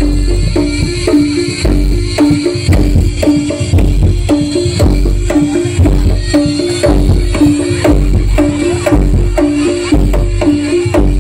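Live jaranan gamelan music: drums and pitched percussion play a steady repeating pattern of short notes, about two a second, over deep low booms.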